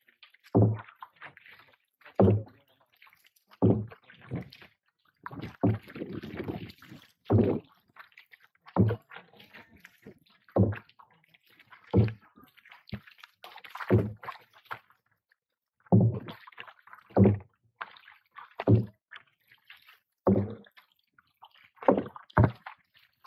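Kayak paddle strokes: a short thump with a little splash about every one and a half seconds, with faint water sloshing between strokes.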